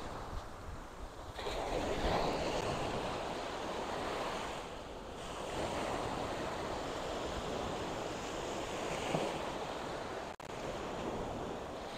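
Small waves breaking and washing up a sandy beach, the surf noise swelling louder about a second and a half in and again near the middle.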